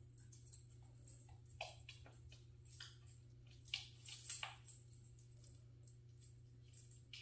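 A puppy's claws clicking on a hardwood floor as it scrambles around its dog bed: irregular light clicks, with a quick cluster of louder ones about four seconds in.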